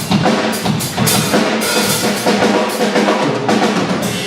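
Full drum kit played as a groove, with bass drum, snare and cymbals, during a soundcheck of the whole kit.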